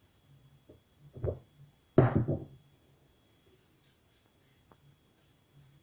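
Potato being peeled by hand with a knife: two dull knocks about one and two seconds in, the second the louder, then a few faint clicks.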